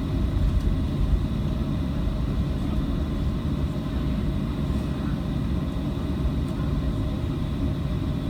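Steady low rumble inside the cabin of a Boeing 737-700 taxiing after landing: the engines at idle and the airframe rolling, with a few faint steady tones above the rumble.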